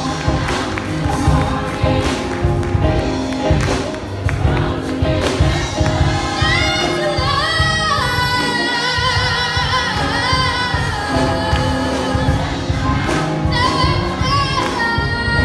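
Choir singing a gospel song over instrumental backing with a steady beat, with a high lead voice sliding between notes in the middle.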